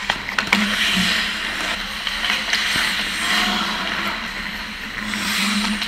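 Ice hockey skates scraping and carving on the ice, with sharp clacks of sticks and puck scattered through, over a steady low hum.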